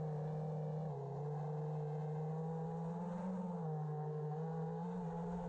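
5-inch FPV racing quadcopter's brushless motors and propellers running, a steady buzzing hum whose pitch shifts slightly up and down with the throttle.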